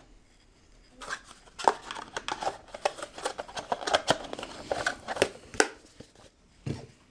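Hands unpacking a set of earbuds: a quick string of clicks, taps and rustles from cardboard boxes and a plastic insert tray being lifted and set down on a wooden table. It starts about a second in and eases off shortly before the end.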